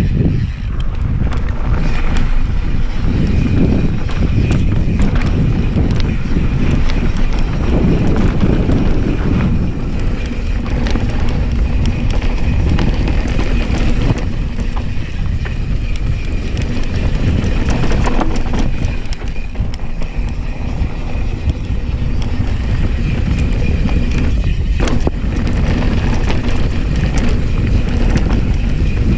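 Wind buffeting the camera microphone and the tyres of a 2020 Specialized S-Works Enduro mountain bike rumbling over a dry dirt and gravel trail on a fast downhill run. A few sharp rattles come from the bike over bumps.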